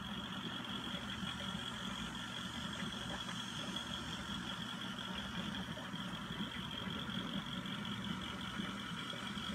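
Steady hum of reef aquarium equipment running: pumps and circulating water, with a thin high whine above the low hum.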